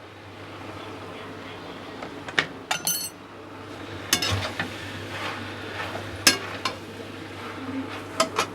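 A metal utensil clinks and knocks against a cooking pan several times, some strikes ringing briefly, as spices are stirred into the sauce.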